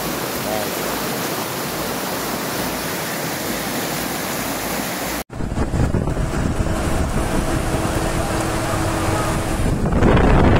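Muddy floodwater rushing down a street in heavy rain, a steady roar of water. About five seconds in the sound cuts to heavy rain on a flooded street with wind buffeting the microphone and a faint steady hum, getting louder near the end.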